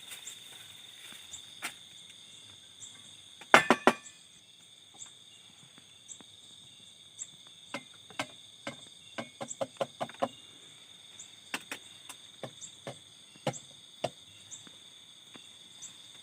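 Steady high-pitched insect chorus, crickets, with a faint chirp repeating about once a second above it. Scattered sharp clicks and knocks over it, the loudest a quick run of three about three and a half seconds in.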